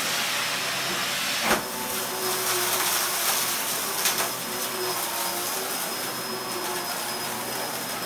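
Dyson DC04 upright vacuum cleaner running on a rug as it sucks up a pile of dirt and grit: a steady rushing hiss with a high whine, broken by a sharp click about a second and a half in and a smaller one a few seconds later.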